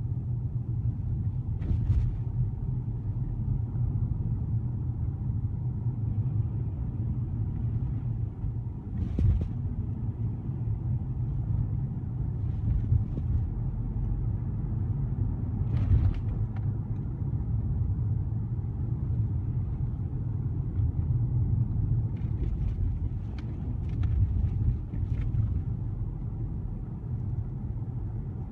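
Steady low rumble of a car on the move, engine and tyre noise heard from inside the cabin, with a few brief clicks or knocks scattered through it.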